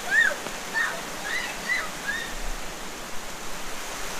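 Shallow creek water running steadily over a rocky riffle and low ledge. Several short, high-pitched calls sound in the first two seconds.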